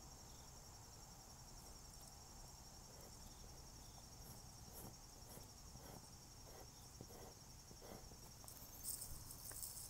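Near silence: faint strokes of a pencil drawing on paper over a steady high-pitched background whine, with a brief brushing rustle near the end.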